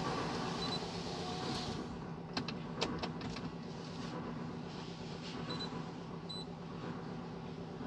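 A vehicle engine running steadily, with two sharp clicks about two and a half seconds in.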